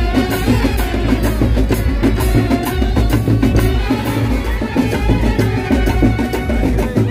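Loud live festival-procession music: drums beating a steady rhythm under a sustained melody.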